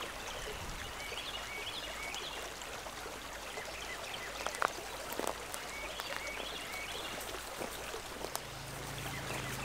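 Steady rushing of a nearby creek, with a few faint high chirps and a couple of soft clicks over it.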